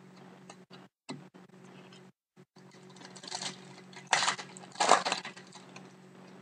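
A trading-card pack wrapper crinkling and tearing open in three short, loud bursts a little past the middle, after light ticks of cards being handled.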